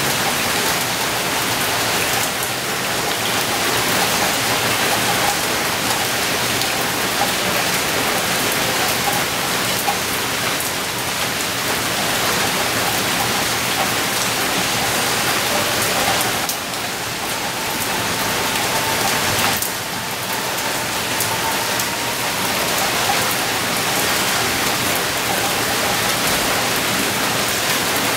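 Heavy rain pouring down steadily, a dense even wash of drops on leaves and surfaces.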